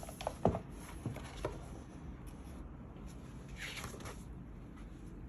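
Cardboard and paper packaging being handled: a few light taps in the first second and a half, then a brief rustle around four seconds in.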